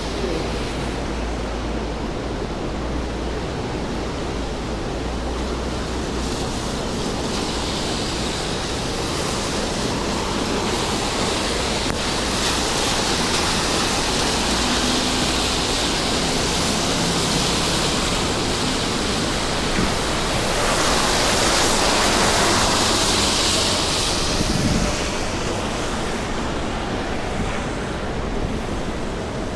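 Steady rainfall on a wet city street, an even hiss, swelling louder for a few seconds about two-thirds of the way in.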